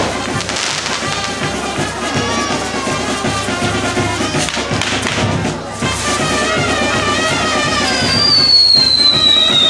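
Music playing together with the hiss and crackle of firework fountains spraying sparks. About eight seconds in, a high whistle starts and slowly falls in pitch.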